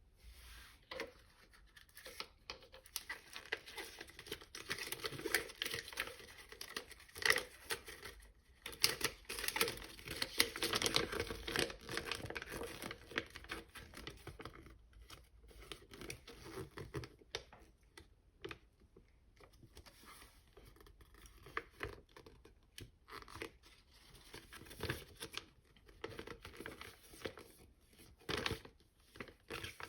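Packaging being torn open and crinkled by hand during an unboxing, with dense crackling rustles that thin out about halfway through into sparser rustles and small clicks.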